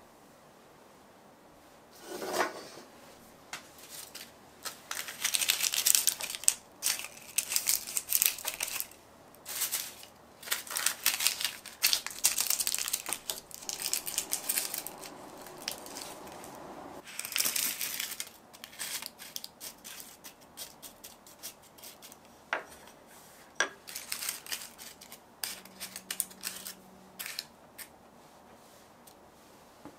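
Kitchen utensils and dishes being handled: a busy run of clinks, taps and rattles, heaviest in the first half, with a short stretch of scraping partway through.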